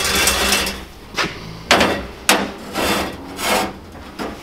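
A heavy steel Stilson pipe wrench and other metal parts set down and shifted on the perforated metal grate of a blast cabinet: a run of about six clanks and scrapes, some short and some drawn out, over a faint steady low hum.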